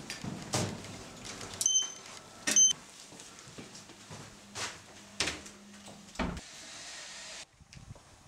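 Two short electronic beeps, then a steady low hum for several seconds that ends in a heavy thud as a building's glass entrance door is pushed open and swings shut, with footsteps and clicks throughout.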